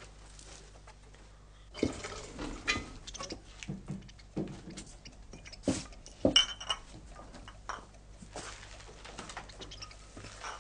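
Glassware or crockery being handled: scattered clinks and knocks, the sharpest about two seconds in and again around four to six and a half seconds.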